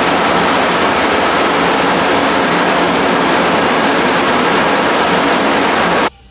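Loud, steady rushing noise, cutting off suddenly near the end.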